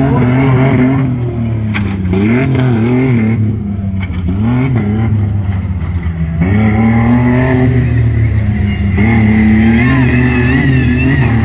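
Modified tuff truck's engine revving hard, its pitch rising and falling over and over, with a longer climb to high revs about six and a half seconds in.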